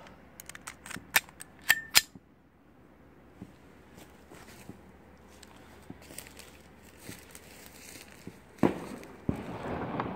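Gunshots: a quick string of sharp pistol shots in the first two seconds, then scattered fainter shots. Near the end come two louder, deeper bangs, each echoing and rolling away.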